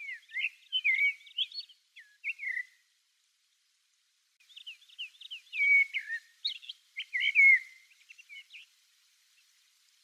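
Common blackbird singing two phrases of quick, warbling, twisting notes, the second starting after a pause of about a second and a half.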